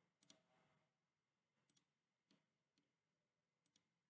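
Near silence, with a few very faint clicks of a computer mouse.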